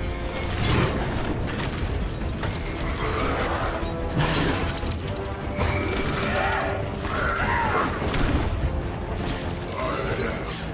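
Film sound effects of a giant robot breaking out of ice: mechanical clanking and metal straining, ice shattering, and rising and falling mechanical whines every second or two, over a dramatic orchestral score.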